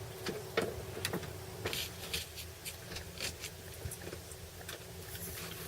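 Vacuum cleaner flex being handled and pulled along through the hands: faint rustling with scattered small clicks and taps, as heat-shrink tubing is worked along toward the damaged section of cable.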